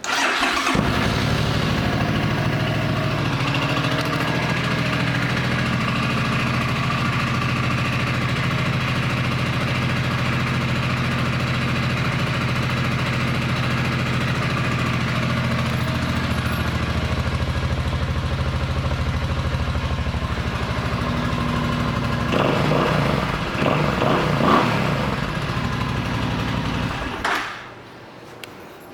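Suzuki C50 Boulevard's 805 cc V-twin starting up and idling steadily, its throttle blipped a few times near the end before the engine is shut off.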